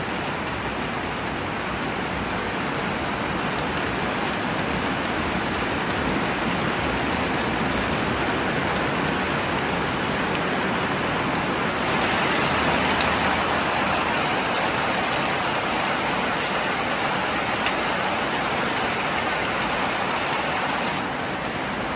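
Steady rain falling on corrugated metal roofing, a little louder from about halfway through until near the end.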